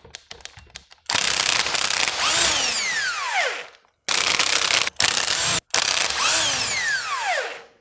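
Cordless impact driver hammering as it backs out the chuck bolts of a gas post driver's chuck tube, with a rapid mechanical rattle. It runs in three bursts, and the first and last end with the motor's whine falling as it spins down.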